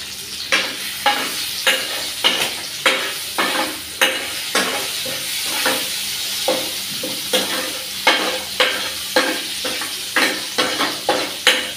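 Hot oil sizzling steadily in a nonstick kadhai while a steel spoon stirs it, scraping and knocking against the pan roughly every half second.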